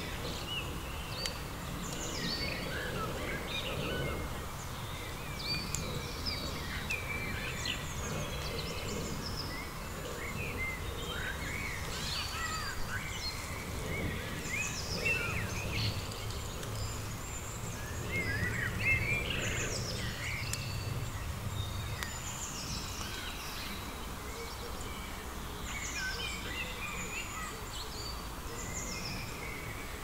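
Woodland birdsong: many small birds chirping and singing in quick, overlapping short phrases over a steady low background hum.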